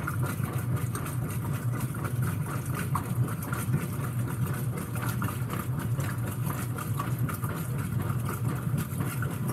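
Whirlpool WTW5300SQ0 top-load washing machine running on its quick wash cycle: a steady low hum, pretty dang quiet.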